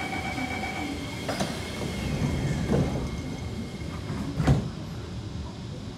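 Kawasaki C151 train's sliding doors closing: a steady high tone sounds, the doors shut with a knock about a second and a half in, then further thuds follow, the loudest about four and a half seconds in.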